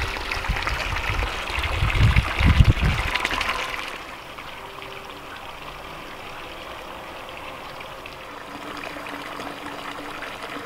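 Water from a stone fountain's spout pouring into the water of a long stone trough, a steady splashing trickle. It is louder and mixed with low rumbles for the first four seconds, then quieter and even.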